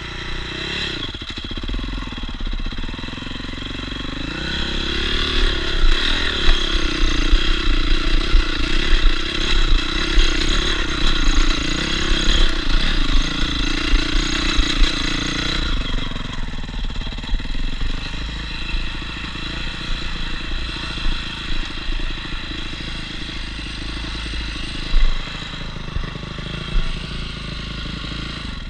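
Enduro dirt bike engine being ridden, its pitch rising and falling with the throttle. It is louder and more varied for the first half or so, then settles to a steadier, slightly quieter note.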